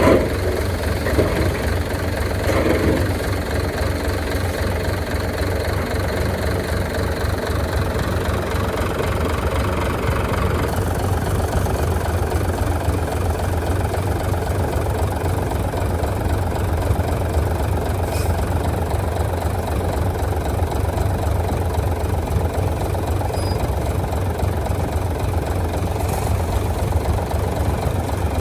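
Bulldozer's heavy diesel engine running steadily with a low rumble, with a few short knocks in the first three seconds.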